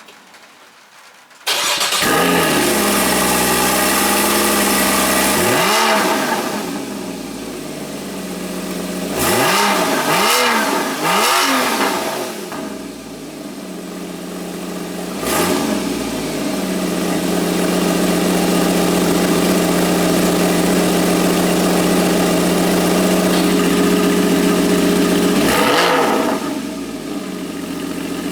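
Porsche Boxster 981 flat-six with the sport exhaust starting up about a second and a half in, then idling, with short throttle blips: one near six seconds, three in quick succession around ten seconds, one near fifteen and one near twenty-six.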